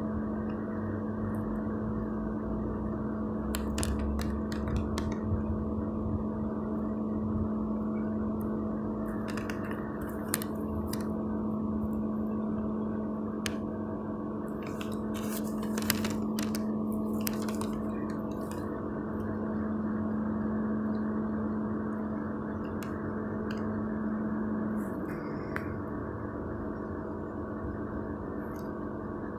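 CFR electric locomotive running with a steady hum made of one strong low tone and several higher ones, with scattered short metallic clicks. Near the end the main tone slides down in pitch.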